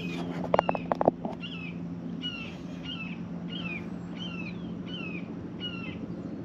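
A songbird calling over and over, a short falling chirp about every 0.7 seconds. A few sharp clicks come about half a second to a second in, over a steady low hum.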